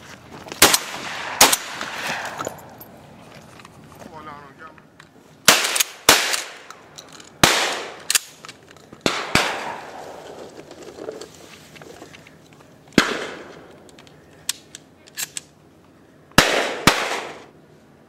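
Shotgun shots fired at birds overhead, about a dozen sharp blasts in irregular groups, each with a short ringing tail: two in the first second and a half, a quick run of shots between about five and a half and nine and a half seconds in, one about thirteen seconds in, and two close together near the end.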